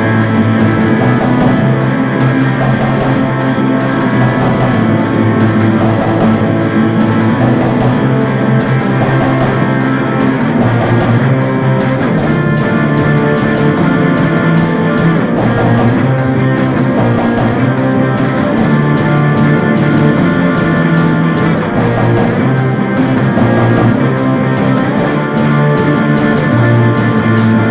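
Rock music led by guitars, playing steadily and loud.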